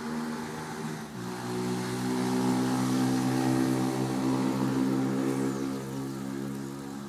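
A motor vehicle's engine passing by: a steady hum whose pitch steps down about a second in, growing louder to a peak in the middle and then fading away.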